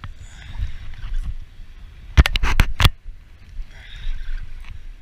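A quick run of five or six sharp knocks a little over two seconds in, over a low rumble of wind on the microphone and a light wash of water against the pier wall.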